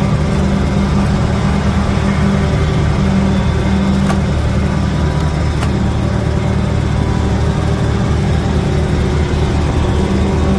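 A fishing boat's engine running steadily at an even pitch, with a couple of faint ticks.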